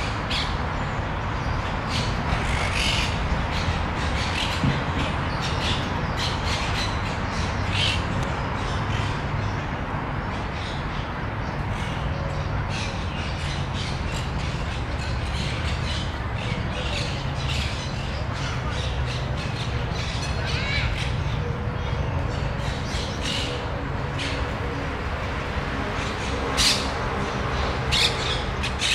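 Birds calling in the tree canopy: many short squawks and chirps scattered throughout, over a steady low background rumble.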